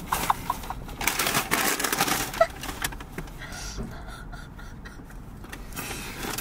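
Quick soft clicks and rustling, densest in the first half and thinner later on: eating and food-handling noises close to the microphone.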